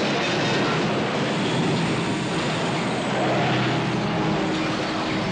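Film sound of car and truck engines running hard amid crashing vehicles: a loud, dense, steady rush of engine and crash noise with no single standout impact.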